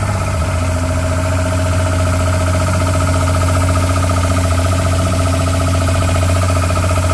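Mercury 200 hp two-stroke Optimax direct-injection V6 SportJet engine idling steadily just after its first start, with the cowling open. A steady low hum runs with a steady whine above it.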